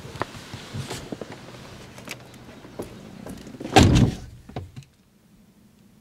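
Rustling and small clicks of someone moving in the passenger seat of a 2005 Mini Cooper S, then the passenger door shut with one solid thud about four seconds in.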